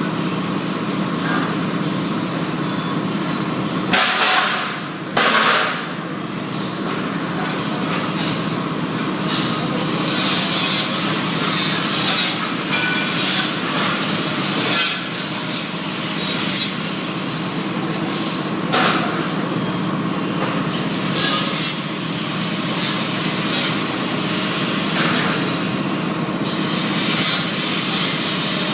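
Welding work: a steady hum runs throughout, broken many times by short bursts of hissing crackle.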